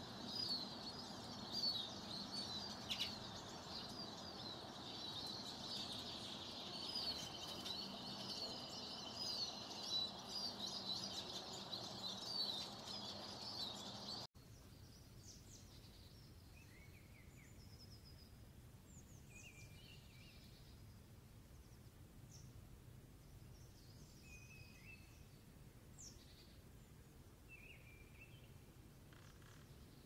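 Wild birds calling in forest: dense, rapidly repeated high chirps over a constant background hiss. About 14 seconds in it cuts abruptly to a much quieter stretch with only scattered short chirps and whistles.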